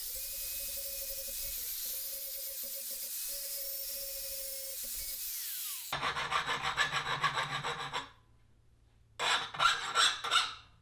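A power grinder runs steadily against a hardened leaf-spring steel trowel blade for about six seconds, then cuts off abruptly. A hand file is then worked across the blade in two bursts of quick rasping strokes, skating on the hard steel rather than biting.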